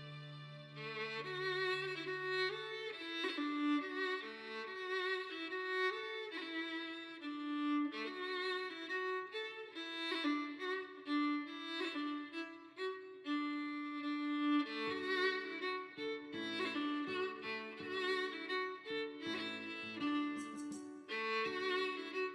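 Violin music: a violin plays a melody of many short notes over a held accompaniment, from a violin medley of film-score themes.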